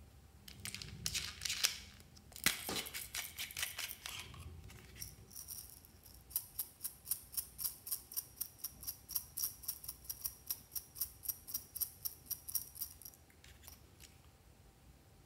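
Hard plastic clicking and rattling as a handheld toy fan is handled. It turns into a regular run of sharp clicks, about three or four a second, for several seconds.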